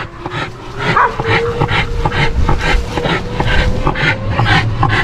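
Dogs making quick, repeated short sounds, about four a second, over a golf cart's steady motor whine that rises slowly in pitch.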